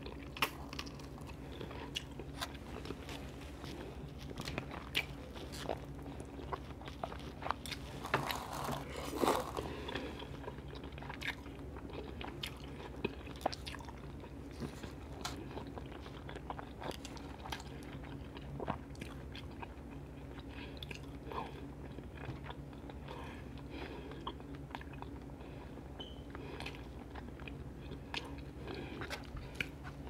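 Close-miked mouth sounds of eating shrimp and Alfredo pasta: chewing and biting with many short, wet clicks and smacks, over a steady low hum.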